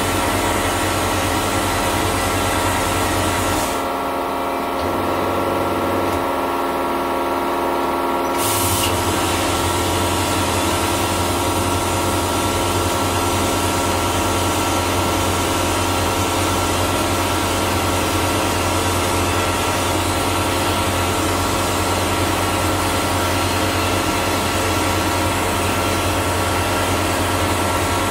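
Vapor blaster spraying water-and-abrasive slurry with compressed air through a 3D-printed plastic nozzle onto an aluminium part: a steady hiss over a constant machine hum. The hiss stops for about four seconds early on, leaving the hum, then comes back abruptly.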